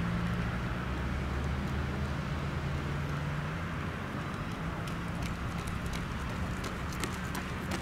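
A vehicle engine running close by, its steady hum fading after about three and a half seconds, over outdoor street noise with a few light taps near the end.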